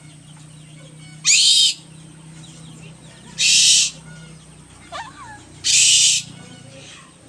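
An owl giving three harsh, hissing screeches, each about half a second long and roughly two seconds apart, with faint chirping calls between them.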